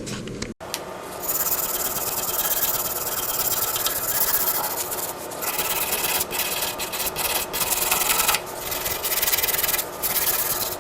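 Rust being scrubbed off the soaked steel ratchet by hand: a continuous rasping scrub of metal, broken by a few short pauses.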